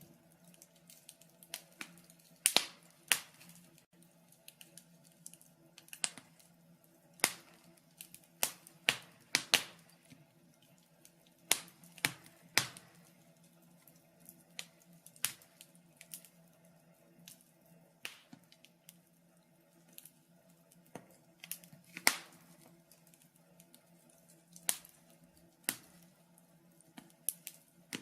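Wood fire in a fireplace crackling: irregular sharp snaps and pops, several a second, with a handful of louder ones, over a faint steady low hum.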